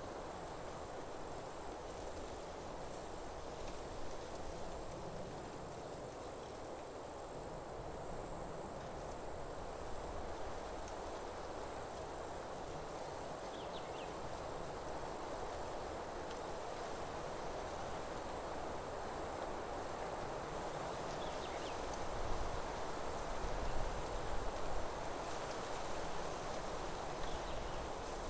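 Forest ambience: insects trilling steadily at one high pitch, over a constant low rushing background noise. A few faint short chirps come through around the middle, and a low rumble swells briefly toward the end.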